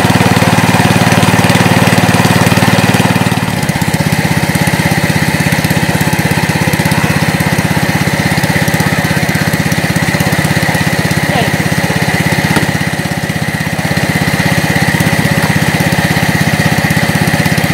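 Small engine-driven water pump running steadily, pumping water out of a fish pond. Its note drops slightly about three and a half seconds in, and it dips briefly near the middle.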